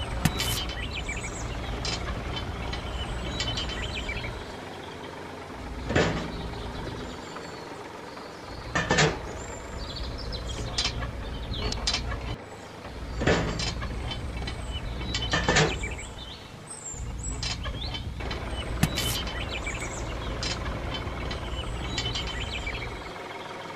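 Small plastic toy parts and a metal pin being handled and fitted together: scattered sharp clicks and knocks, about six of them, over a steady low hum that cuts out now and then.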